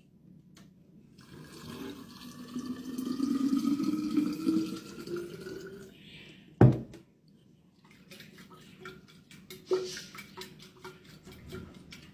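Water pouring into a bottle, its pitch rising slowly as the bottle fills, to make up a litre of rehydration-drink concentrate. A sharp knock follows, then a string of small clicks and another knock, as the container is handled and closed.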